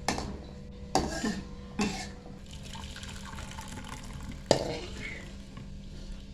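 Fish broth and fish being poured from a metal wok into a bowl, with a trickling, splashing flow. Several utensil knocks on the wok in the first two seconds and a sharp clank about four and a half seconds in.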